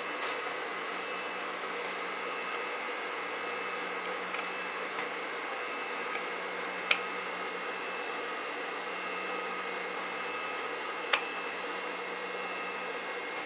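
Small sharp scissors snipping into coat fabric: a few light clicks, then two louder snips, one about halfway and one near the end, over a steady background hiss with a faint hum.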